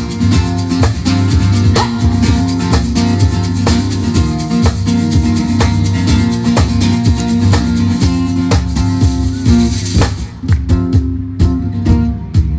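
Live country band playing an instrumental passage between sung lines: guitars, bass and drums on a steady beat. The cymbal wash drops out about ten seconds in, leaving guitar, bass and drum hits.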